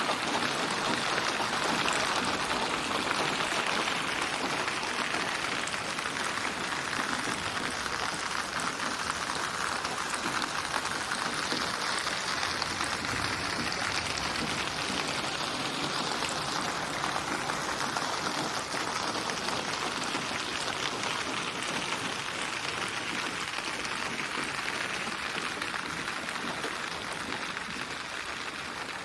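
Synthesized rain ambience: steady rainfall built from many recorded rain samples, a dense even patter whose focus shifts slowly, easing a little in loudness toward the end.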